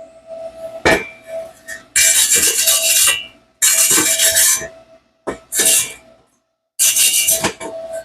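Rasping scraping strokes on the freshly welded metal exhaust header, four long passes with short gaps, after a single knock about a second in.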